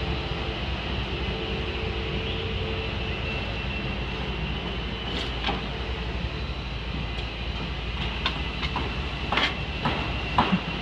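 Boom lift's engine running with a steady drone, its pitched hum fading about halfway through. Scattered sharp knocks come in over the last few seconds.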